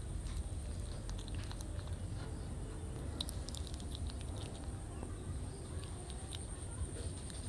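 Kitten chewing and biting small boiled fish close to the microphone: scattered small wet clicks and crunches, over a steady low background hum.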